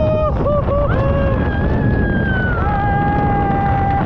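Long, excited whoops and yells of delight from a tandem skydiver under the open parachute, one sliding down in pitch, over wind rushing steadily across the microphone.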